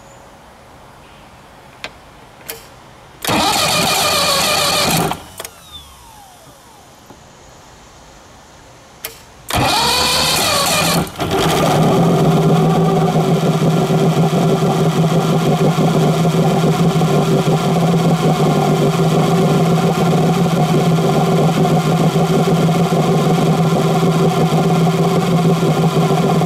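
1976 Mercury inline-six two-stroke outboard being started: the starter cranks it for about two seconds without a start, then after a pause cranks again and the engine catches about eleven seconds in and runs steadily. It is being test-started with the test tank's water below the intake, the owner suspecting a failed water jacket letting water into the cylinders.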